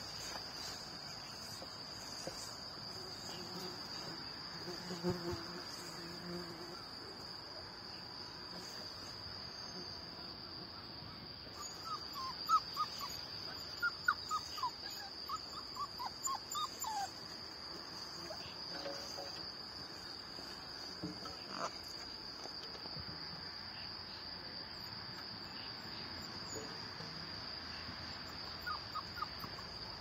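Young puppies whimpering: a run of short, high, falling squeaks lasting about five seconds, starting about twelve seconds in, with a few more later on. A steady high-pitched drone runs underneath.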